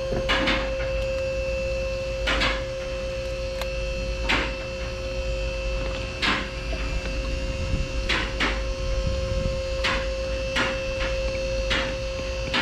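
A steady hum, with short clicks or knocks coming irregularly about every second or two.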